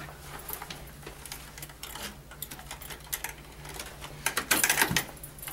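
Small metal clicks and rattles of a chain and hook being unhooked from a hanging loaded bucket, growing louder and busier about four seconds in.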